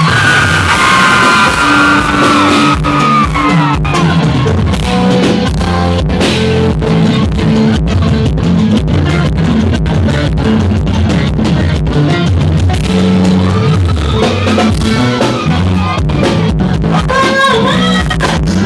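Loud live band music with a steady drum beat and a lead singer. The singing is in the first few seconds and comes back near the end, with the band playing on its own in between.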